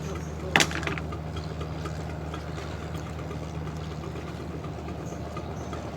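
An engine running steadily at idle with a low, even hum. A single sharp clack about half a second in, ringing briefly.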